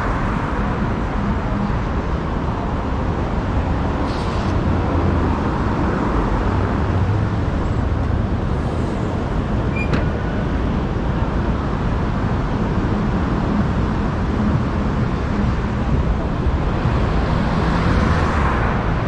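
Road traffic: cars driving past, louder as one goes by near the start and another near the end, with a steady traffic hum in between.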